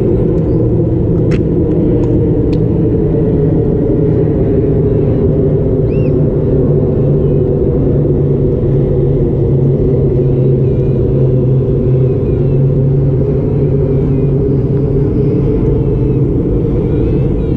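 A steady, loud low rumble with no break, with a few faint short chirps above it.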